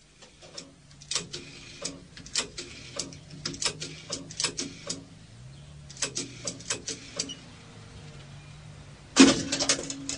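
Sound effects of a payphone call: a run of short clicks and knocks, then a louder clatter about nine seconds in, followed by a steady low tone.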